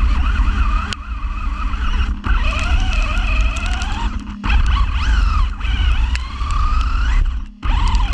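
Radio-controlled car's motor whining as it drives through long grass, its pitch gliding up and down with the throttle over a heavy rumble and rattle from the chassis on rough ground, heard from inside the body shell. The sound drops out briefly twice, about four and a half and seven and a half seconds in.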